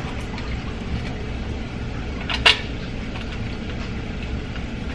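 Steady low hum with a pair of sharp clicks close together about halfway through, from metal parts being handled as the fuel rails are screwed down onto a Chevy Vortec 5.3 intake manifold.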